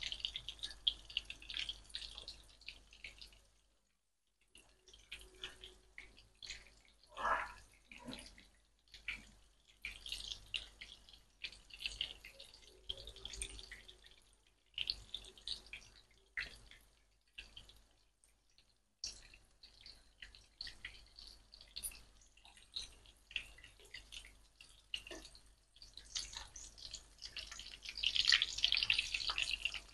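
Breaded chicken pieces frying in coconut oil in a frying pan: a steady crackling sizzle, with scattered clicks of a fork and spoon turning the pieces. The sizzle drops out briefly twice.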